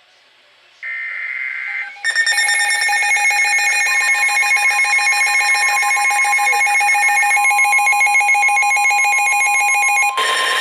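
Emergency Alert System alert coming in: about a second in, a one-second burst of buzzy data screech (the end of the SAME header), then from about two seconds in a loud, steady electronic attention tone. A second, higher steady tone joins a couple of seconds later. The sound signals that a new warning is about to be read.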